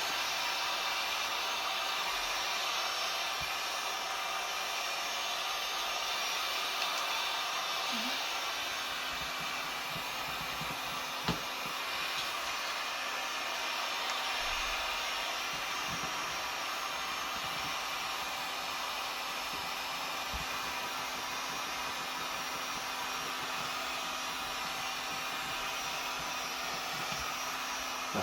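Heat gun blowing steadily, a constant rushing hiss. A faint steady hum joins about nine seconds in, and there is a single click about eleven seconds in.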